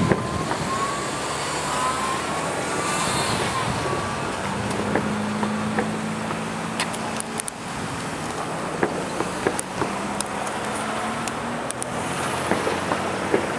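Double-stack intermodal freight cars rolling past and away, a steady rumble with scattered sharp clicks of wheels over the rails. A thin, wavering squeal sounds in the first few seconds, and a steady low hum comes in a little before halfway.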